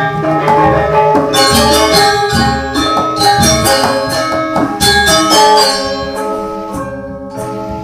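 Background music of struck, ringing tuned metal percussion playing quick repeated notes, dipping briefly near the end.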